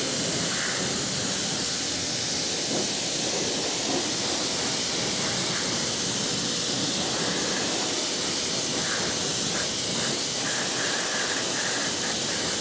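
Pressure washer's water jet spraying against a car wheel and tyre from a bent wand: a continuous, even hiss.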